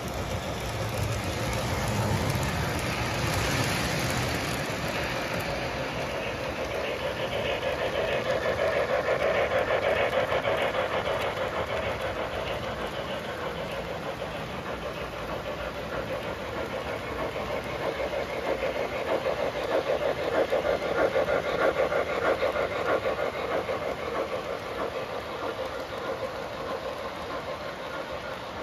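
O-gauge three-rail model freight train rolling along the track, its metal wheels making a steady rolling rumble that swells and eases as a string of piggyback flatcars and boxcars passes close by. A run of quick clicks, from wheels crossing track joints, grows louder about two-thirds of the way through.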